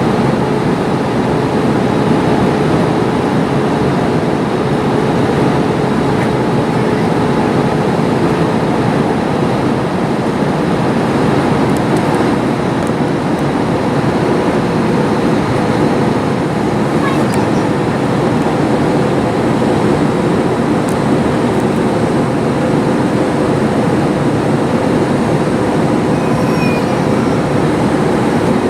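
Steady cabin noise inside an Airbus A321 airliner in flight: engine and airflow noise rushing evenly, with a faint steady hum that fades about a third of the way in.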